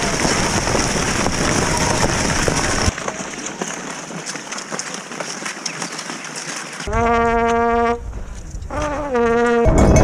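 Two blasts on a spectator's horn, each about a second long and held at one pitch, coming near the end. Before them is the steady hiss of skis sliding on snow.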